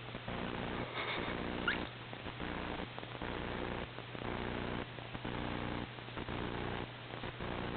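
Newborn baby's noisy nasal breathing, a rough pitched sound on each breath, repeating about once a second with brief pauses between breaths.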